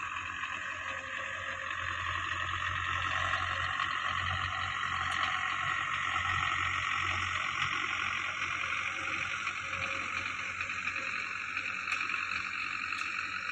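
Belarus tractor's diesel engine running steadily as it tows a laser land leveler across a dry field. It grows louder over the first few seconds as the tractor draws near.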